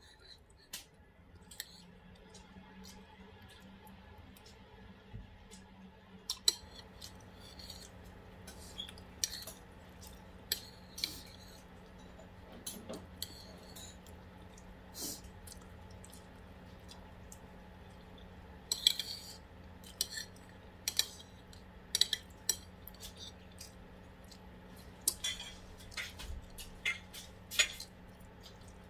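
Cutlery clinking and scraping against dishes while eating, in scattered short clinks that come more often in the last third. A steady low hum runs underneath.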